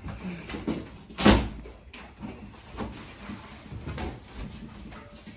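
Cardboard shipping box being torn open by hand: scattered scraping, rustling and knocks, with one loud noise about a second in.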